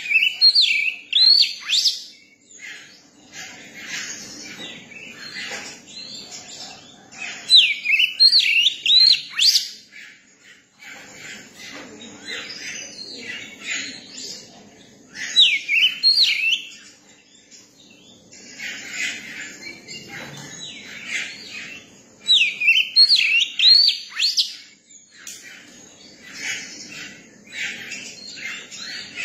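Young oriental magpie-robin singing: loud, sweet whistled phrases that rise and fall, repeated about every seven to eight seconds, with softer chattering notes between them.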